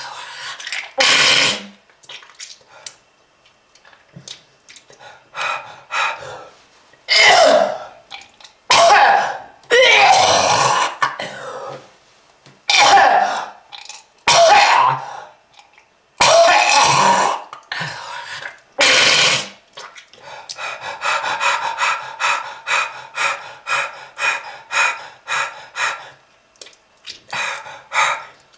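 A smoker's hacking cough: a person coughing and clearing the throat in loud, heavy fits a second or two apart. Near the end comes a run of quicker, shorter hacks, about three a second, before one more loud cough.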